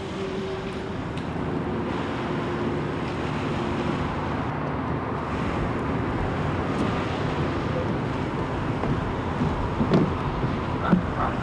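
Steady outdoor waterfront noise, mostly wind on the microphone over open water, with a few short pitched sounds about ten seconds in.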